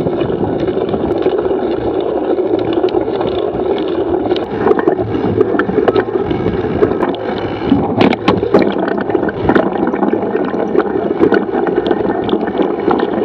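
Wind buffeting the microphone while a mountain bike rolls down a dirt singletrack, tyres crunching on the dirt. From about a third of the way in the bike rattles and knocks over rough ground, the knocks thickest around the middle as the speed picks up.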